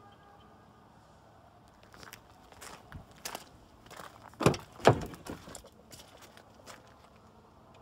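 Rear door of a 2005 Ford Expedition being opened by hand: the outside handle is pulled and the latch releases, two loud sharp clacks about half a second apart a little past halfway through. Before that come footsteps and light scattered clicks.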